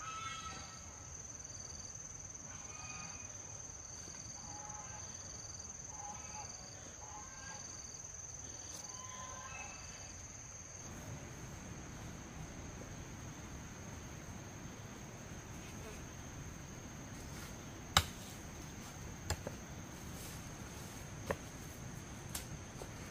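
Forest insects shrilling steadily on one high note, with a second insect pulsing about once a second and a few short chirping calls through the first half. After a cut, the steady insect shrill goes on over rustling undergrowth, with a few sharp cracks of twigs underfoot; the loudest crack comes a little past the middle.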